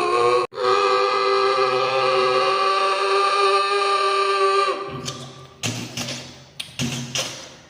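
A man imitating a train with his voice. First comes a long, steady horn call, broken once briefly about half a second in and held for about four seconds. Then comes a rhythmic chugging like a train running on the rails.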